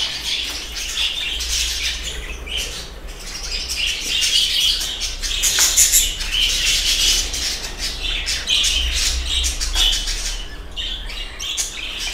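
A flock of budgerigars chattering, a dense mix of warbling and sharp chirps, with a low steady hum underneath.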